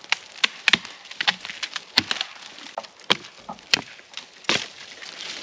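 Dry wood cracking and snapping: sticks and branches breaking in a string of sharp, irregular cracks, several of them loud.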